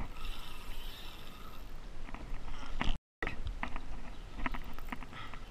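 Fishing reel's drag screaming as a fish strips line off it: a steady high buzz for about three seconds that cuts off suddenly. Then scattered clicks and knocks follow.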